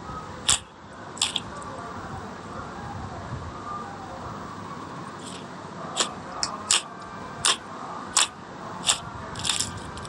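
Slime being pressed and squished, letting out sharp wet pops and clicks: two in the first second and a half, then a quicker run of about seven over the last four seconds.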